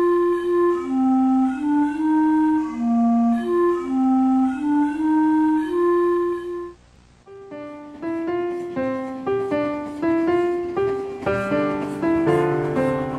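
Background music: a slow melody of held notes on a woodwind such as a flute or clarinet, which stops about seven seconds in. After a short pause a piano tune of struck notes begins and grows fuller toward the end.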